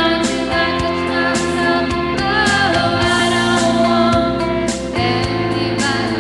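A woman singing karaoke into a microphone over a pop backing track with guitar and a steady beat.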